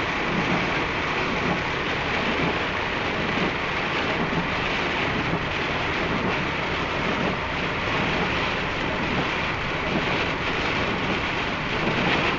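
Heavy rain falling on a car driving at highway speed, mixed with steady tyre and road noise.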